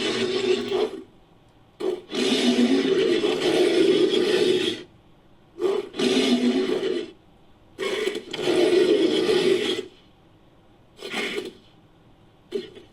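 Designed monster vocal effect layered from big-cat and giant-ape roars: a string of harsh, gritty growling roars. Four long calls of one and a half to three seconds each are followed by two short grunts near the end.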